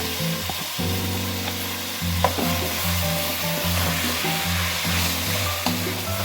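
Chopped onion, red pepper and carrot sizzling in hot oil in a frying pan, with a few light knocks of the stirring utensil against the pan. Background music with held low notes plays underneath.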